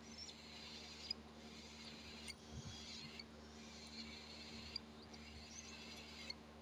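Cockatiel chirping faintly in high, hissy spells of one to two seconds with short breaks between them, over a steady low hum.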